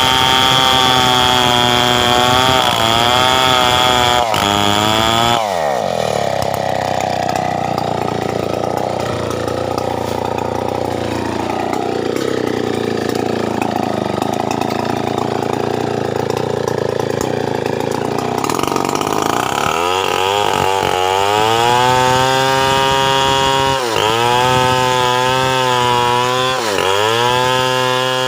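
Stihl 070 two-stroke chainsaw running at full throttle. About five seconds in its pitch drops sharply as it loads down, and it labours at a lower, uneven pitch for about fourteen seconds, the sound of the chain cutting into teak. It then revs freely again at high pitch, with two brief dips near the end.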